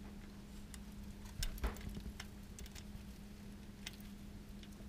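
Light metallic clicks and taps of the oil pickup tube's girdle bracket and hardware being handled and fitted against an LS engine's oil pump, with a louder cluster of clatter about a second and a half in.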